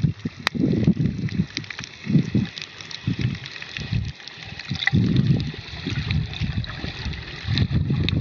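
Water sloshing and rushing around an underwater camera while snorkeling, in uneven low surges about once a second, with scattered small clicks and crackles.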